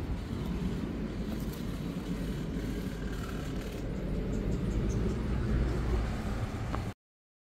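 Outdoor background noise: a steady low rumble with a light hiss above it, which cuts off abruptly near the end.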